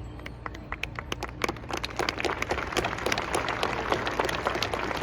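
Crowd applause starting as scattered claps and quickly filling out into steady clapping.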